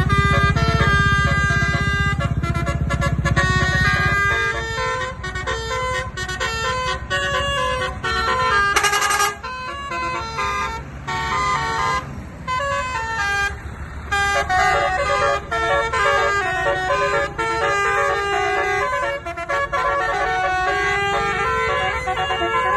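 Telolet basuri multi-tone horn playing a tune note by note, each pitch held briefly before stepping to the next. A low rumble runs underneath for the first four seconds.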